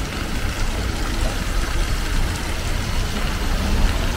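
Outdoor city ambience: a steady low rumble with a hiss over it, like street traffic.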